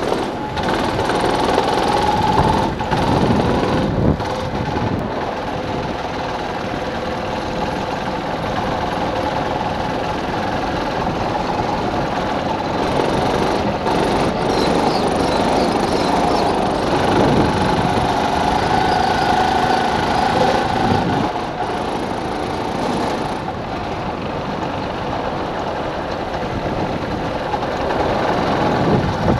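Racing kart engine heard from on board while lapping, its pitch rising and falling as the kart speeds up on the straights and slows for corners.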